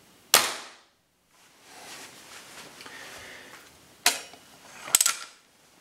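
A .177 Air Arms TX200 spring-piston air rifle fires once, a sharp crack with a short ringing decay. Handling noise follows, then a sharp click about four seconds in and a quick run of clicks about five seconds in.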